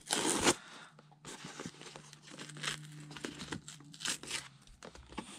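Layered cardboard of a toy box being peeled and torn apart by hand: a loud rip in the first half-second, then softer tearing and rustling, with another rip about four seconds in.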